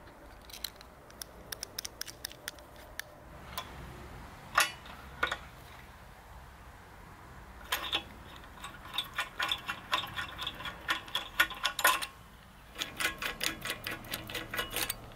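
Hand rivet nut tool (E-360NH) clicking as rivet nuts are threaded on and set into the box: scattered single clicks with a sharper one a few seconds in, then two runs of quick metallic clicks through the second half.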